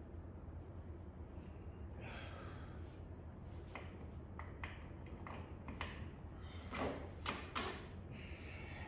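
Scattered small clicks, clinks and short scrapes of tools and parts being handled during a motorcycle wheel change, with a few louder knocks about seven seconds in, over a steady low hum.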